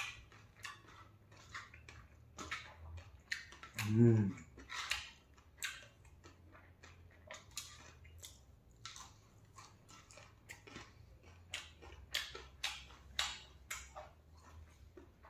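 Close-up eating sounds: a person chewing rice and singju salad with the mouth, with wet lip smacks and many short clicky chews. A brief voiced hum about four seconds in.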